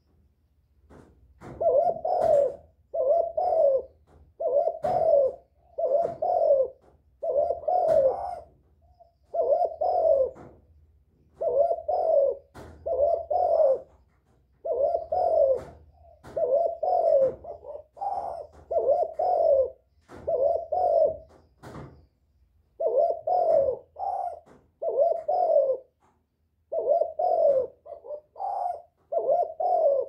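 Spotted dove, a decoy bird, singing its cooing song: low coos about one a second, in runs of two or three broken by short pauses.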